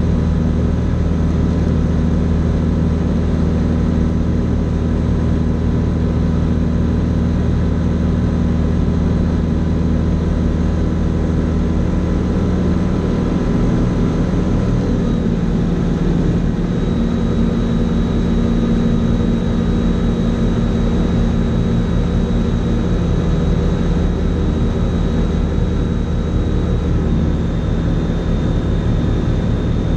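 Fly Synthesis Storch S ultralight's engine and propeller droning steadily in cruise flight, heard inside the cockpit. The engine note shifts slightly about halfway through.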